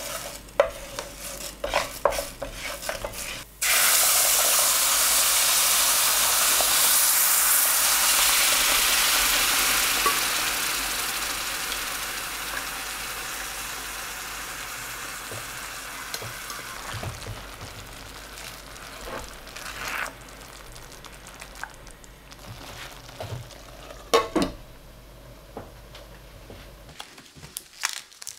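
A wooden spoon stirs dry Arborio rice in oil in a stainless steel pan, clicking and scraping. About three and a half seconds in, a sudden loud sizzle starts as butternut squash purée hits the hot pan. The sizzle dies down over the next ten seconds or so to a quieter simmering hiss, with a few knocks of the spoon or pan near the end.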